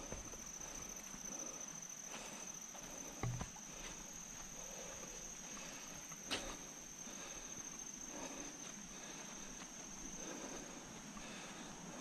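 Steady, high-pitched drone of rainforest insects, with footsteps on a trail littered with dry bamboo leaves and two brief knocks, about three and six seconds in.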